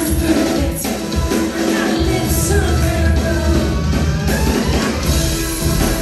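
Loud live noise-pop band music, heavy drums and bass with a woman singing over them, recorded from the audience in a concert hall.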